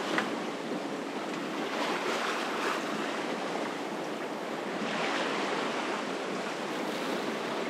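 Sea water washing and splashing along a sailboat's hull as it moves through the water, with some wind on the microphone.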